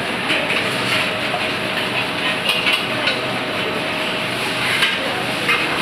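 Busy commercial kitchen ambience: a steady rush of extraction hood fans and gas burners, with a few clinks of steel pans and utensils.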